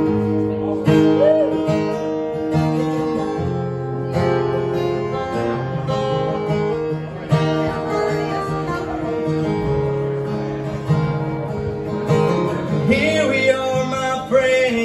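Acoustic guitar played solo as a song's intro, and a man's voice comes in singing about thirteen seconds in.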